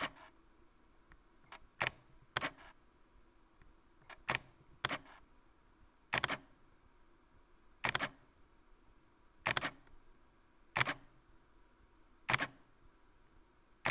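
Fujifilm X-T30's mechanical focal-plane shutter firing again and again, each release a short sharp click. At the half-second speed the clicks come in pairs about half a second apart, the shutter opening and then closing. Later releases at 1/15 and 1/125 s sound as single clicks, with no metallic ring, and a soft dragging sound follows the shutter event. The owner guesses this is the whole shutter mechanism moving back to its resting position.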